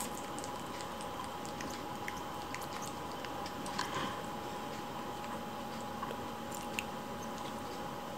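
Kittens gnawing and mouthing on a person's fingers, giving small scattered wet clicks and smacks, a little busier around the middle, over a steady background hiss.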